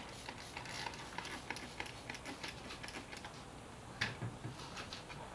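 Magic eraser scrubbing the painted surface of a motorcycle gas tank: a faint run of quick, irregular rubbing strokes, with a louder scuff about four seconds in.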